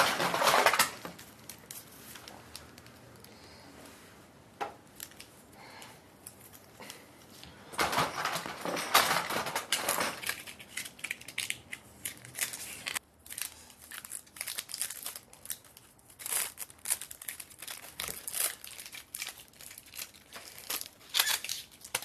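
Rummaging in a fabric duffel bag and handling a toy gadget with straps: rustling and crinkling, loudest at the very start and again about eight to ten seconds in, with scattered small clicks and rattles in between.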